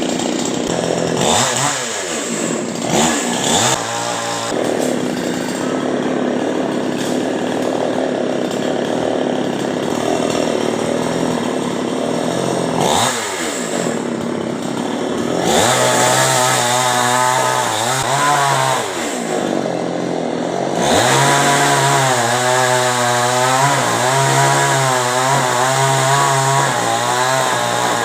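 Chainsaw cutting a coconut tree trunk. The engine revs up and down several times, then from about halfway through is held at high revs for long stretches, the pitch wavering as it cuts.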